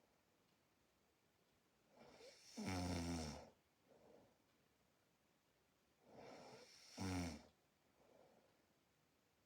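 A person snoring in sleep: two snores about four seconds apart, each building up and then loudest for about a second, with a fainter breath after each.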